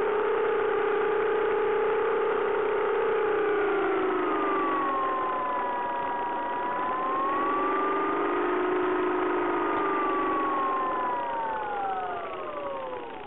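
Bixler 3 RC plane's electric motor and pusher propeller, heard from on board, humming with a pitch that dips and rises again as the throttle changes. Near the end the pitch slides down and the sound fades.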